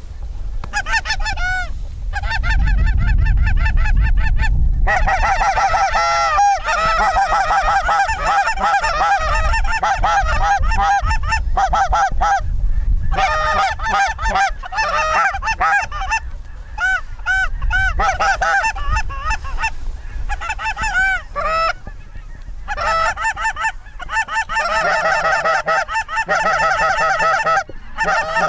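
Many geese honking at once, their calls overlapping almost without a break, with a few short lulls. A low rumble sits underneath in the first few seconds.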